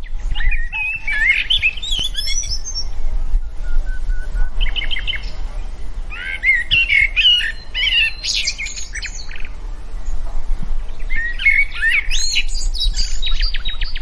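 Songbirds singing: quick, varied warbling and chirping phrases in three main bouts with short trills between them, over a steady low rumble.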